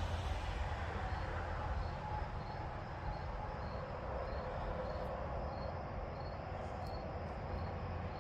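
Steady low background rumble, with an insect chirping faintly and evenly about twice a second.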